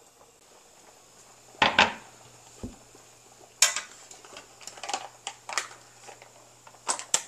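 Stainless steel tongs clicking and clinking against a wok and a plastic retort pouch as the pouch is gripped and lifted out of boiling water. The sharp clicks come sparsely at first and more often in the second half, over a low steady hum that starts about two seconds in.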